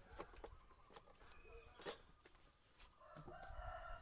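Quiet, with a few faint clicks and knocks, the sharpest about two seconds in. Near the end a rooster starts crowing, one long crow.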